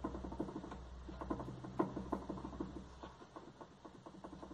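Hyundai HB20 front stabilizer link knocking in quick, rattling clicks as the suspension is worked by hand, with one sharper knock near the middle. The new link has a little play, and its clunk sounds like a worn steering rack from inside the car.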